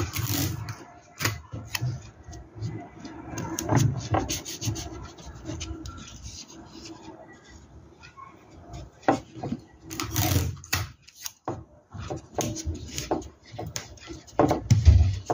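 Hands rubbing and pressing small fabric pieces onto the fabric in a plastic embroidery hoop: irregular rustling with scattered small taps and knocks.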